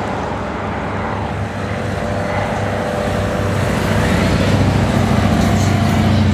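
Propeller aircraft engine running with a steady hum, growing louder about four seconds in.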